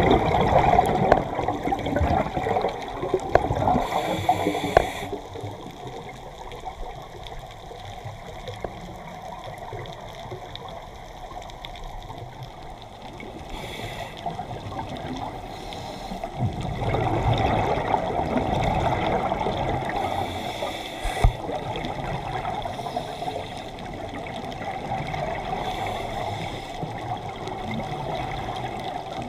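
Scuba diver's regulator underwater: surges of exhaled bubbles, loud at the start and again from about 17 seconds in, with quieter stretches between and brief hisses of breath.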